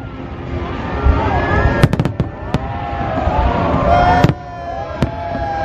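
Aerial fireworks bursting: a quick cluster of sharp bangs about two seconds in, then single bangs scattered through the rest, over the voices of the watching crowd.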